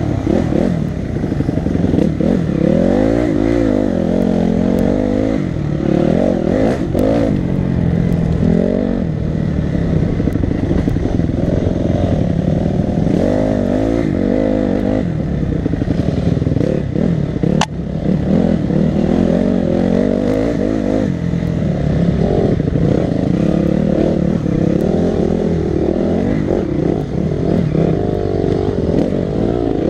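Enduro dirt-bike engine revving up and down constantly as the bike is raced along a dirt trail, heard close up from the rider's own bike. One sharp knock a little past halfway.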